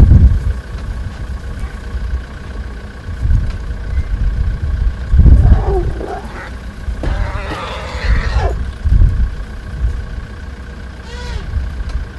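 African elephants calling: a wavering call about five seconds in, then a louder, fuller call of about a second and a half, and a short call near the end. A tourist vehicle's engine runs with a low rumble underneath.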